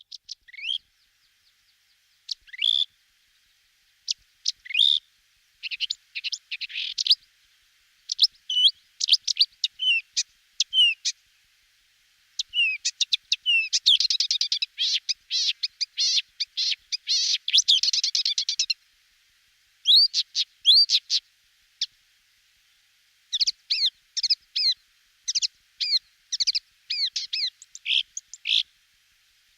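Small birds chirping: many short, sharp notes and rapid runs of notes, coming in bursts with brief silences between them, busiest in the middle and again near the end.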